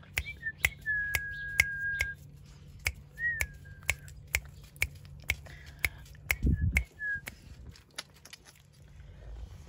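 A person's sharp tongue clicks or finger snaps, two to three a second, with a few short high whistles, one held about a second and one rising then falling, calling a Pekingese puppy. A soft low thump comes about six and a half seconds in.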